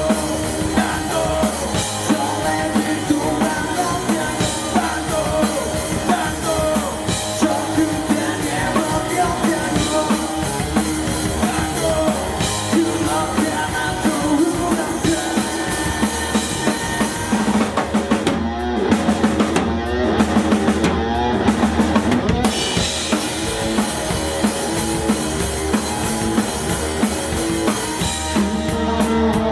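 A live rock band playing, with the drum kit (kick, snare and cymbals) to the fore. About eighteen seconds in, the band plays a run of short, clipped accented hits for a few seconds, then returns to full playing.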